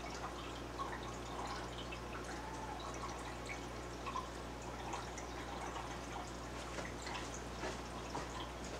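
Water dripping and trickling in an aquarium, with many small pops and splashes over a steady low hum.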